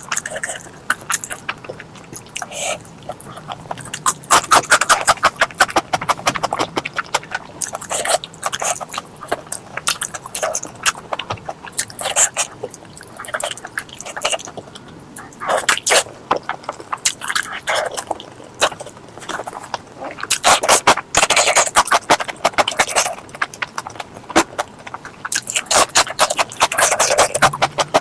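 Close-miked eating of pork leg curry with rice: wet chewing and lip smacking in irregular bursts of sticky clicks.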